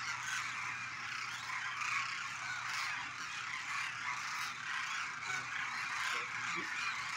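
A large flock of demoiselle cranes calling all at once: a dense, unbroken chorus of many overlapping croaking calls.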